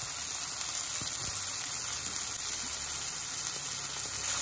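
Chopped garlic, shallots, ginger and chillies sizzling steadily in hot oil in a wok.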